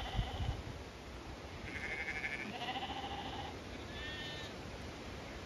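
Zwartbles sheep and lambs bleating, about four calls in the first four and a half seconds, some high and thin, some lower. Wind rumbles on the microphone at the start.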